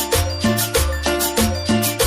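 Cumbia music with a steady beat, an instrumental stretch without singing: deep bass notes under a quick, even rhythm of high percussion, about four strokes a second.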